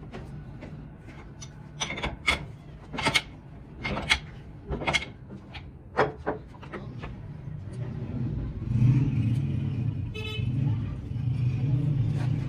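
Sharp metal clinks and clanks of hand tools against a steel part clamped in a bench vise, about eight of them, irregular, in the first half. Then a low motor-vehicle engine rumble builds, with a short horn toot about ten seconds in.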